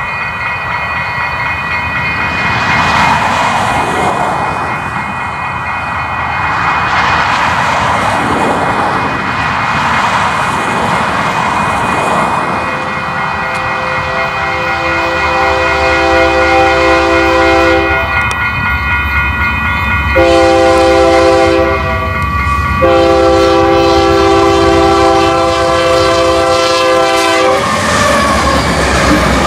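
Union Pacific freight locomotive's multi-tone air horn sounding a long blast, a short blast and another long blast, over the steady rumble of the approaching train.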